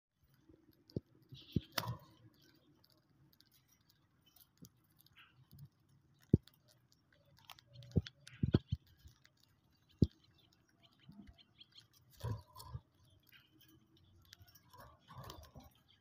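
Budgerigars cracking seeds in their beaks as they eat from a hand: scattered sharp clicks, one or a few at a time, with quiet gaps between.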